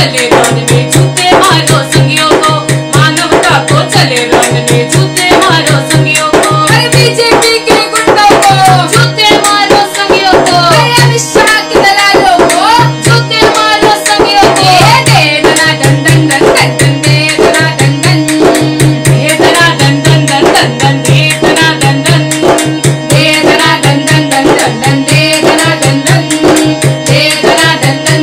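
Harmonium and a large hand-struck frame drum playing a steady rhythmic accompaniment to a protest song, with a woman's singing voice in parts.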